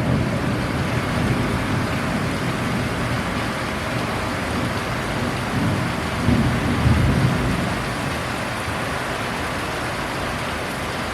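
Heavy rain falling steadily during a thunderstorm, with a low roll of thunder swelling about six to seven seconds in.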